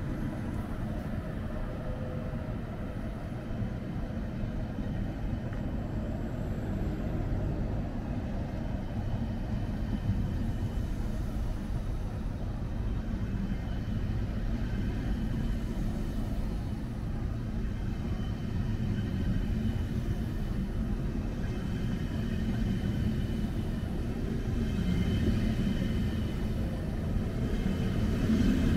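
Train rumbling steadily on the tracks. A faint high whine comes in about halfway through, and the sound grows a little louder near the end.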